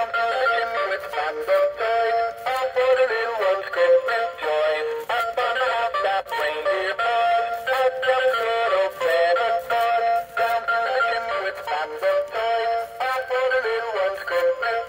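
Gemmy Douglas Fir animated talking Christmas tree toy singing a Christmas song through its built-in speaker, with a thin sound that has almost no bass.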